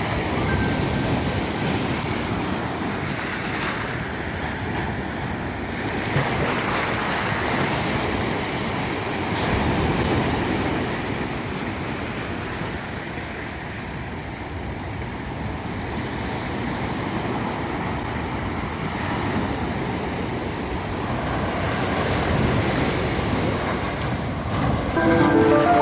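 Sea waves breaking and washing up a beach, rising and falling in swells every few seconds, with some wind. A few musical notes come in near the end.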